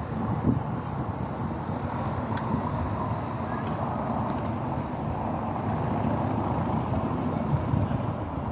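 Steady low rumble of motor vehicles, with one sharp click about two and a half seconds in.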